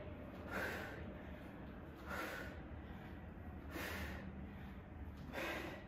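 A woman's sharp, forceful exhales, four of them about a second and a half apart, in time with the hip thrust of kettlebell swings.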